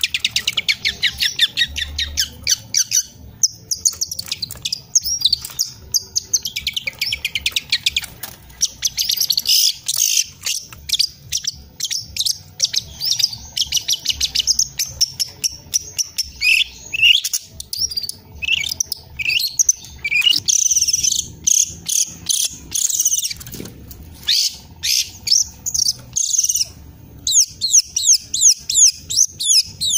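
Young long-tailed shrike (cendet) singing in a long, fast chattering stream of high chirps and twittering phrases, with short pauses now and then. It is bringing out the songs it was trained on (its 'masteran').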